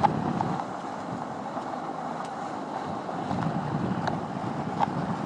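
Water rushing and spraying past the hull of a Hobie 16 catamaran sailing at speed, mixed with steady wind buffeting the microphone. A few faint clicks come through.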